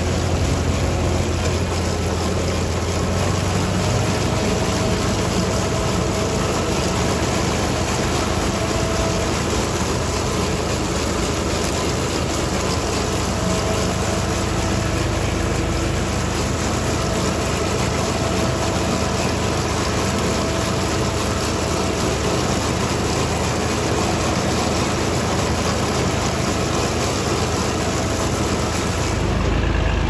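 Farm tractor's diesel engine running steadily as the tractor drives across a field, a constant low drone with noise from the ride.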